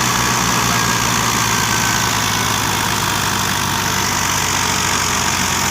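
Tractor engine running steadily with an even, low throb.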